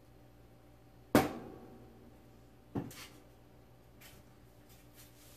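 Two sharp metallic clunks from a toaster oven's door and tray being handled: a loud one about a second in that rings briefly, and a smaller one near the middle, followed by a few faint clicks.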